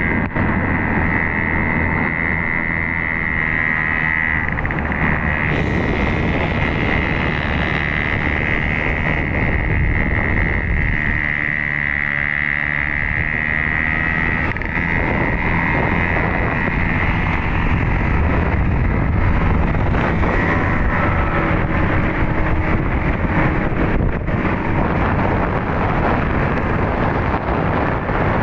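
Motorcycle engine running steadily while riding, with wind rushing over the microphone and a steady high whine that weakens in the second half.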